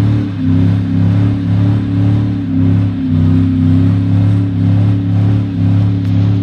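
Regular-cab pickup truck's engine revving hard through a burnout, its sound swelling and dipping about every two-thirds of a second.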